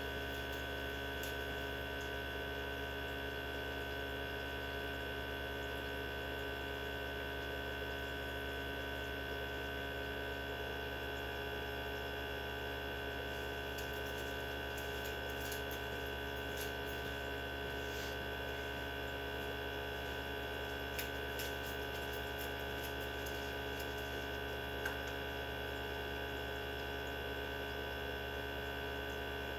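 Mini benchtop centrifuge running at speed with its rotor loaded with blood tubes: a steady electric motor hum with a constant high tone over it. A few faint ticks come through in the middle.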